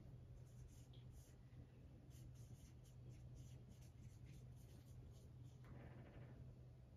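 Near silence with faint, short scratching strokes of writing, over a low steady hum.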